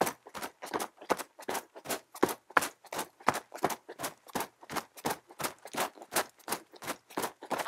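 Footsteps crunching through snow at a brisk, even pace, about four steps a second.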